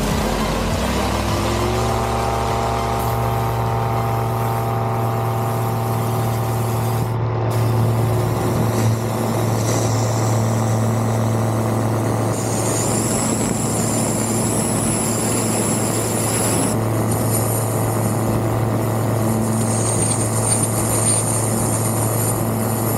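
Rotax 912 engine and propeller of an ICP Savannah ultralight at takeoff power. The engine note rises over the first couple of seconds as the throttle opens, then holds steady through the takeoff run and climb.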